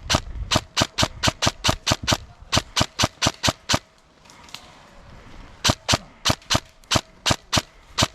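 Airsoft gun firing rapid single shots, about four or five a second, in three strings with a short pause near the middle.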